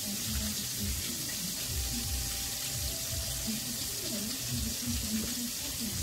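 Chicken deep-frying in a large pot of oil: a steady sizzling hiss, with soft low thumps from chicken being pressed into flour.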